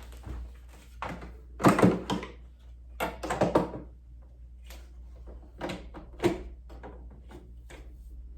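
A series of knocks and clunks of hard objects being handled and set down, coming in clusters about two, three and six seconds in.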